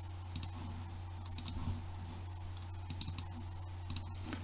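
Faint clicking of a computer keyboard and mouse, a few scattered keystrokes and clicks, over a steady low electrical hum.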